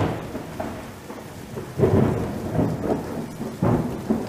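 Intro sound effect of deep, thunder-like rumbling swells over a steady rain-like hiss, swelling three times.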